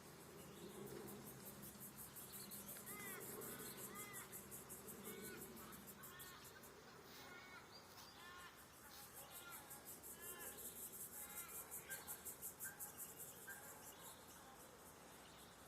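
Faint insect trilling in fast, high, even pulses, with a small bird giving short repeated chirps through the middle.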